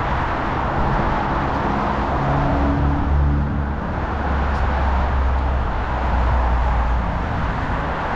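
Road traffic: cars passing on the street alongside, with one vehicle's engine rumbling louder through the middle of the stretch before fading.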